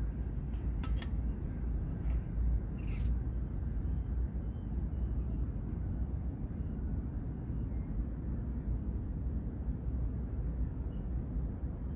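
Outdoor ambience: a steady low rumble, with a few faint high chirps about three seconds in and again near the end.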